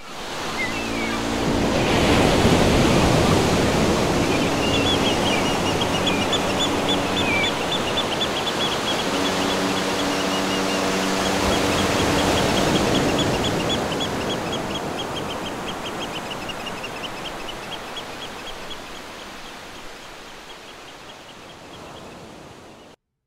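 Ocean surf ambience, a steady rushing wash that swells in the first seconds and slowly fades out toward the end. Under it are low sustained tones in several stretches. Over it, from about four seconds in, comes a long run of quick high chirps, about four or five a second.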